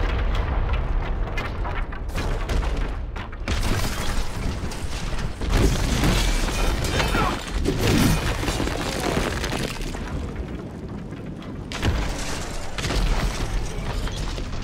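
Film sound design of an explosion blasting open a stone fortress wall: heavy booms and rumbling with a string of impacts and crashing debris, with the film score mixed underneath.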